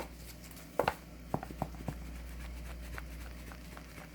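A few light, sharp clicks and taps from hands sprinkling seasoning and handling raw turkey chops, over a steady low hum.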